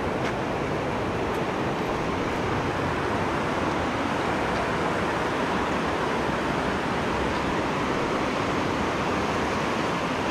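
Stream water rushing over boulders and small rapids: a steady, even rush.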